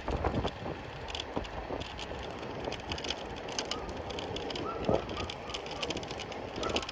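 Martı electric rental scooter rolling along asphalt: steady tyre and road noise with scattered knocks and rattles from the scooter over bumps, one sharper knock about five seconds in.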